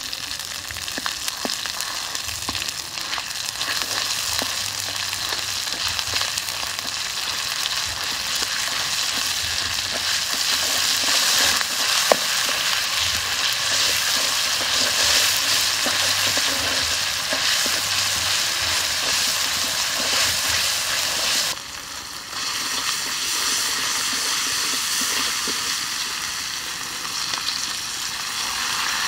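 Curry paste and oil sizzling in a hot steel wok, a wooden spoon stirring and scraping through it with small sharp ticks. Near three-quarters of the way the sizzle briefly drops, then goes on as pieces of meat and vegetables are stir-fried.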